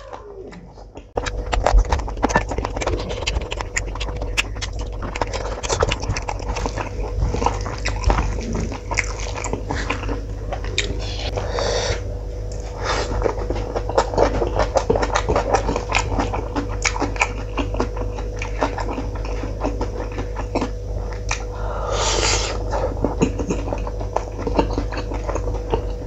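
Close-miked eating of rice and curry by hand: continuous wet chewing, lip-smacking and squelching of food, starting about a second in, with two louder wet bursts near the middle and near the end, over a steady low hum.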